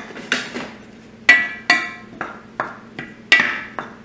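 A wooden spoon knocking against a red enameled skillet, a run of about seven or eight sharp, irregularly spaced knocks with a brief ring, while seasoning is stirred into sliced sausage.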